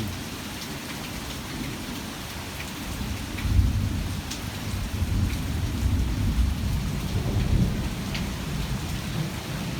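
Heavy, torrential rain pouring steadily in a thunderstorm. A deep, uneven rumble swells in about three seconds in and lasts several seconds.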